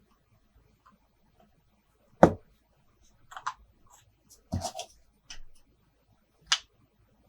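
Small plastic toy pieces being handled and set down on a hard surface: a few separate knocks and clicks, the loudest a knock about two seconds in, another knock with a brief rattle near the middle, and a sharp click near the end.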